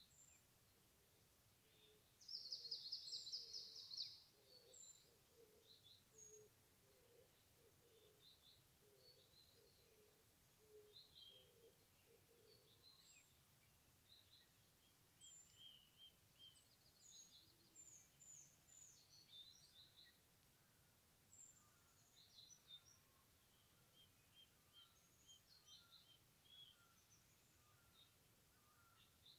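Faint woodland birdsong from several birds: scattered short, high chirps and calls, with a louder rapid trill about two to four seconds in and a soft series of low notes over the first half.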